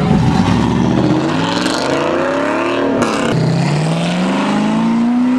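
A fourth-generation Chevrolet Camaro's engine launching from the autocross start and accelerating hard. The revs climb steadily, drop at an upshift about three seconds in, then climb again.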